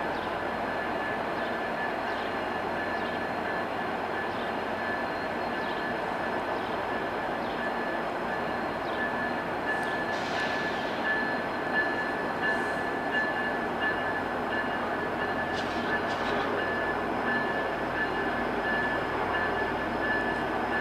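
VIA Rail passenger train hauled by F40PH diesel locomotives running slowly out of the station: a steady rumble with a steady high whine over it, and a few brief higher squeaks about halfway through.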